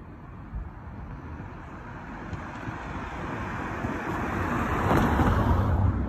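A car driving past: engine and tyre noise that builds over several seconds to a peak near the end, then starts to fade.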